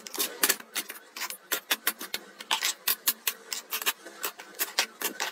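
Cosmetic tubes and pens clicking and clacking as they are set one after another into a clear plastic organizer bin: a rapid run of sharp taps, several a second.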